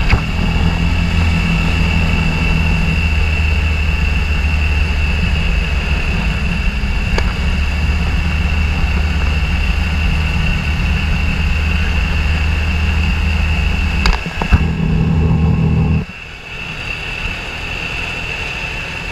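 ATV engine running at a steady speed while being ridden along a road. There are a couple of knocks about 14 seconds in, and the engine sound drops to a quieter level near the end.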